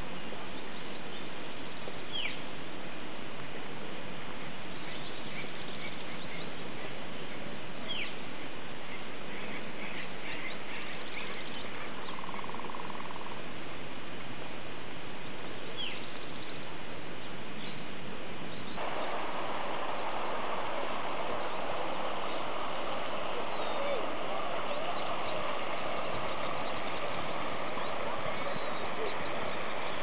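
Wild birds calling now and then over a steady outdoor hiss, including a few short chirps that fall in pitch. The hiss grows louder a little past halfway.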